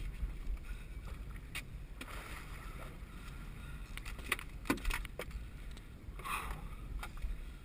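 Steady wind rumble and water sloshing against a small fishing boat's hull, with a few sharp clicks and knocks of gear being handled on deck.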